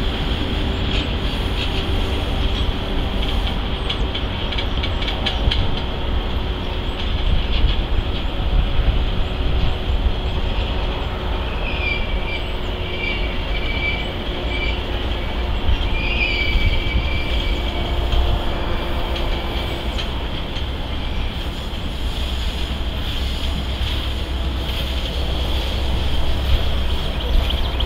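Railcars of a slow-moving maintenance-of-way work train rolling past, a steady rumble of steel wheels on rail with scattered clicks. Faint, wavering wheel squeal comes in near the middle.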